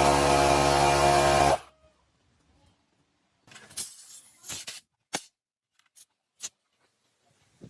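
Restored air compressor running with a steady hum, then cutting off abruptly about one and a half seconds in, followed by a few short clicks and knocks.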